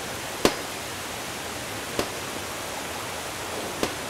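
Muddy floodwater gushing through holes broken in a garden wall, a steady rush, with three sharp knocks of a tool striking the wall about every one and a half seconds.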